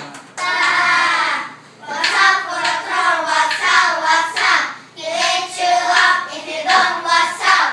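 A group of young children singing together in three phrases with short breaks between them.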